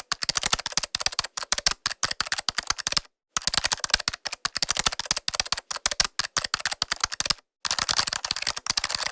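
Laptop keyboard typing: fast, dense runs of key clicks, broken by two brief pauses, about three seconds in and again past seven seconds.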